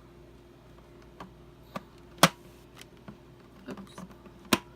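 Plastic parts of a Hoover Fusion Pet cordless stick vacuum clicking and knocking as the clear dust cup and filter are fitted back on: several light clicks and two sharp snaps, one about two seconds in and one near the end.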